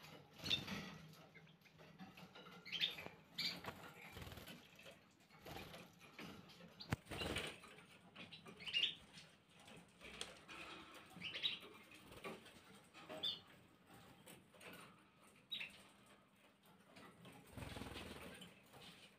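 Gloster canaries fluttering about their cages, with irregular wing flaps and a few short chirps.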